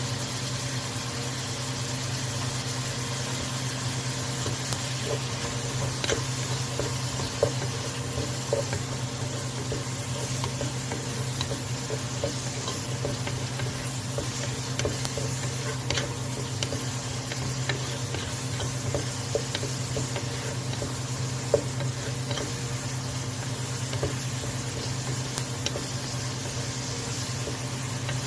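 Vegetables sizzling in a pan while being stirred, with occasional sharp clicks of a utensil against the pan. A steady low hum runs underneath.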